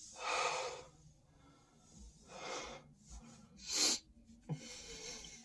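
A person's noisy breaths: three short puffs of breath about a second and a half apart, the last a short, sharp gasp.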